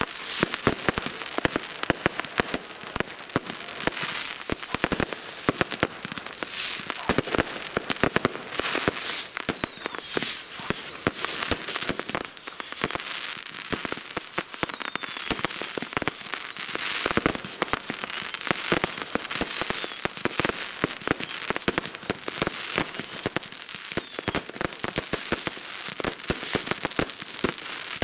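Fireworks set off by many people at once: a dense, continuous barrage of bangs, firecracker reports and crackling aerial shells, with a few short whistles among them.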